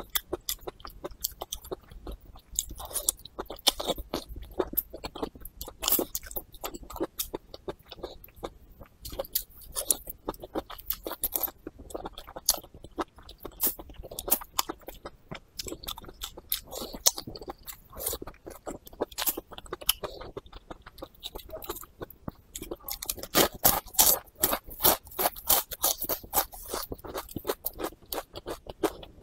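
Close-miked chewing of a pan-fried green chili pepper: wet, crunchy mouth clicks and crackles, getting louder and denser a little before the end.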